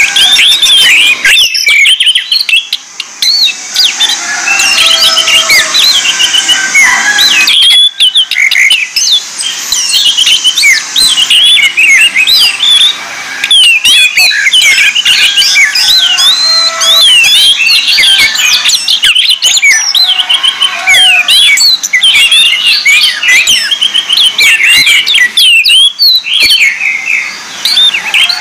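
Caged orange-headed thrushes singing: a dense stream of fast, varied chirps and warbled phrases, several birds overlapping, with brief breaks about 8 and 13 seconds in.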